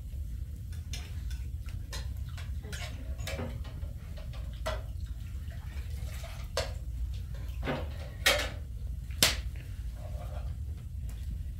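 Irregular clicks and knocks over a steady low rumble, with two louder, sharper knocks about eight and nine seconds in.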